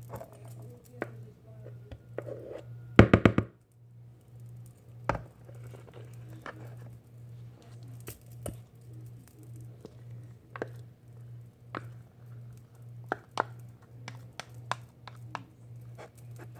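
A plastic measuring cup scooping thick muffin batter out of a plastic pitcher: scattered light knocks, taps and scrapes of the cup against the pitcher, with a short, louder rattling clatter about three seconds in. A steady low hum runs underneath.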